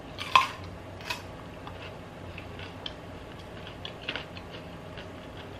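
A crisp bite into a raw carrot about a third of a second in, followed by small, scattered crunching clicks as it is chewed.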